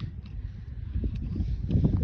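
Low rumble of wind buffeting the microphone, swelling near the end, with a few faint clicks.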